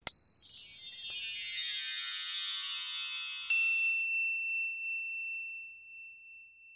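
Shimmering chime sound effect for an animated logo: a bright ding, then a cascade of many high tinkling tones. A second ding comes about three and a half seconds in, and after it a single high tone rings on and fades away.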